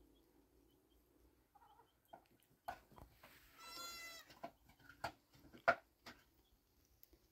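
A single short bleat from a farm animal about four seconds in, among scattered faint knocks and taps; the sharpest knock comes a little before six seconds in.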